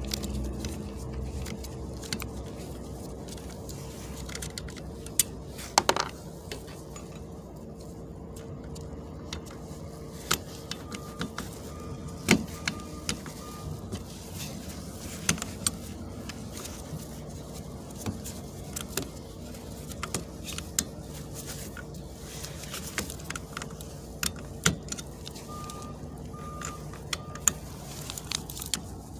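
Metal clicks and clinks of a folding Torx key set against the wiper motor's mounting bolts and steel linkage, scattered irregularly, with the tool's keys jangling as they are turned. A faint steady hum sits underneath.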